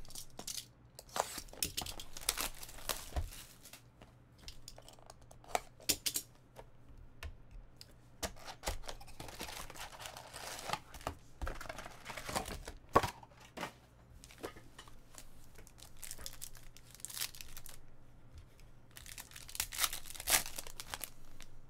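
Packaging of an O-Pee-Chee Platinum hockey card box being opened and its foil card packs crinkling and tearing as they are pulled out and ripped open: irregular rustles with sharp crackles, loudest about halfway through.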